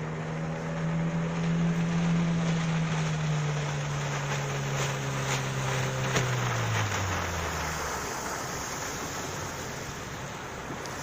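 Sea Pro 9.9 two-stroke outboard motor running steadily, then dropping in pitch and fading away about two-thirds of the way through as it slows, over a steady rush of water and wind.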